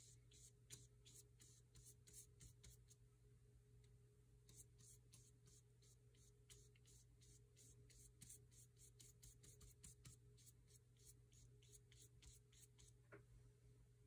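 Faint swishing of a paintbrush laying paint onto paper in short, quick strokes, about two or three a second with a couple of brief pauses.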